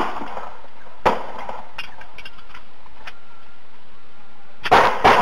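Gunshots: a single sharp crack at the start, another about a second in and a faint one about three seconds in, then a rapid volley of loud shots beginning near the end, over steady hiss.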